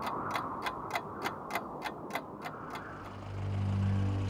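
Clock ticking at about three ticks a second, stopping a little under three seconds in. A vehicle engine then takes over, running with a steady low hum.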